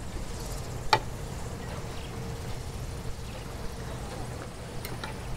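Knife and fork cutting a grilled steak on a plate, with two sharp clicks of cutlery against the plate, one about a second in and one near the end, over a steady low hum.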